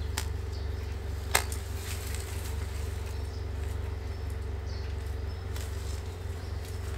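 Two sharp clicks of a garden tool working in soil and roots while a plant clump is dug out; the second, a little over a second in, is the louder. A steady low hum runs underneath, with a few faint high chirps later on.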